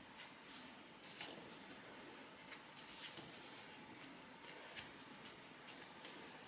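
Faint soft taps and rustles of hands pressing and shaping a raisin dough on a floured wooden board, barely above the room's quiet.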